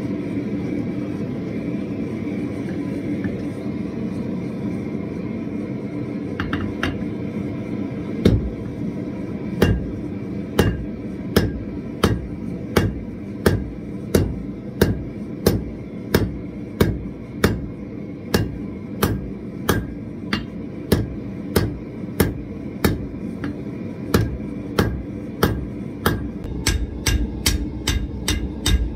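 Steady roar of a gas forge, then from about eight seconds in a blacksmith's hand hammer striking red-hot steel on an anvil in sharp, regular blows, about one and a half a second, quickening near the end.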